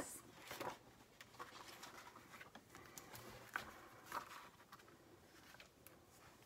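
Faint rustling and soft taps of paper as the pages of a worn, falling-apart picture book are handled and turned. There are several short rustles spread through, not a steady sound.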